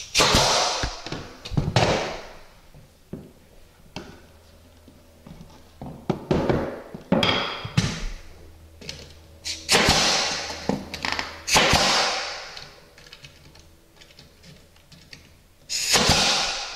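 Pneumatic finish nailer driving nails into wooden baseboard trim: about six sharp shots several seconds apart, each trailing off over about a second, with lighter knocks between.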